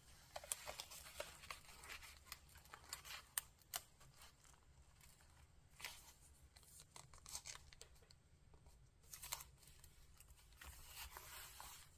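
Faint rustling and crinkling of thin transparent paper being handled and pressed flat onto a journal page, with scattered soft clicks.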